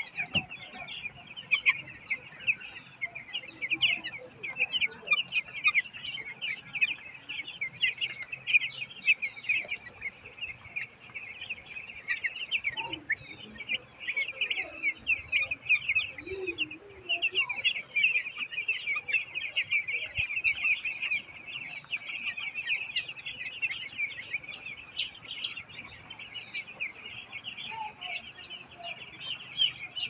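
A pen full of young broiler chicks peeping constantly, many short high chirps overlapping without a break. A couple of lower-pitched calls stand out near the middle.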